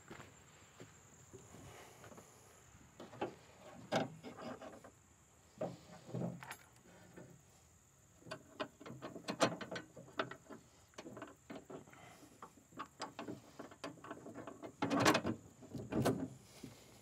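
Ratchet wrench clicking in short runs while turning the 13 mm nut and bolt on a pickup's hood hinge, with a few louder metal knocks, the loudest near the end.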